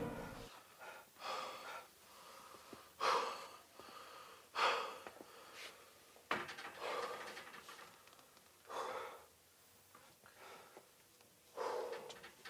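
A man breathing hard and unevenly: about six loud breaths, one every second or two, with quiet between them.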